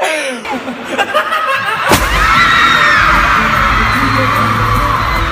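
A man's voice briefly, then about two seconds in a sudden hit starts loud, bass-heavy concert music with a crowd of fans screaming over it.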